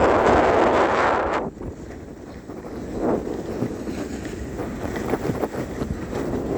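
Wind buffeting the microphone in loud gusts: a strong gust at the start that dies down after about a second and a half, a short surge about three seconds in, then a gradual build again.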